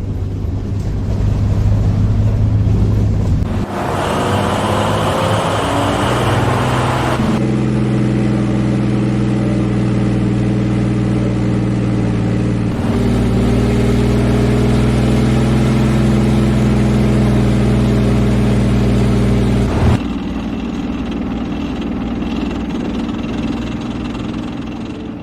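Leopard 2 main battle tank's V12 diesel engine running, played as five short clips in turn, one for each recorded mixdown: interior, engine, exhaust, onboard and tracks. Each clip cuts abruptly to the next; most hold a steady engine drone, and the second is brighter and noisier.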